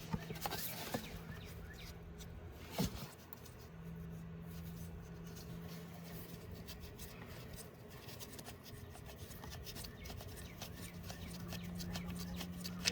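Faint rubbing and small clicks of hands handling tools and parts, with one sharper click about three seconds in, over a faint steady low hum.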